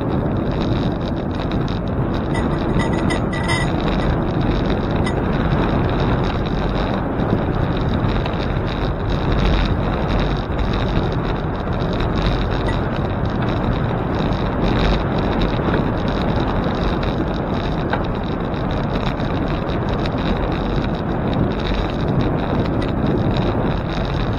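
Steady rush of wind buffeting the microphone of a camera riding along on a moving bicycle. There is a brief high squeak about two to four seconds in.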